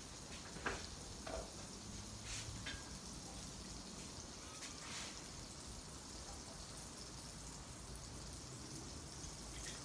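Butter sizzling and bubbling faintly on a hot steel flat-top griddle over medium-low heat, a steady soft hiss. A few light clicks come in the first couple of seconds.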